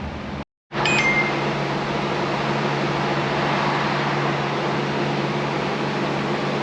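Steady whir of an electric fan or blower motor with a constant low hum, broken by a brief dropout to silence about half a second in.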